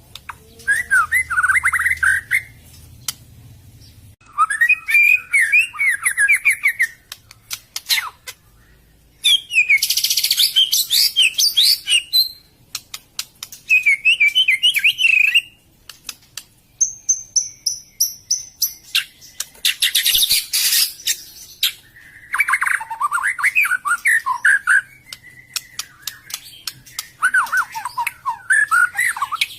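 White-rumped shama (murai batu) singing: a string of varied phrases, each a second or two long with short pauses between, mixing fast warbled notes, harsh high chatter and a brief pure whistle, with sharp clicks scattered between phrases.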